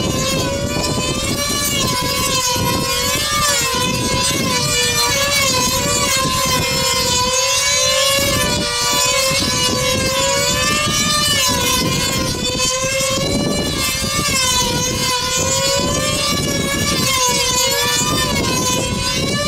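Control-line combat model planes flying circuits, their small two-stroke engines running flat out in a continuous high-pitched whine. The pitch rises and falls over and over as the planes circle and dive, and the tones of more than one engine cross each other.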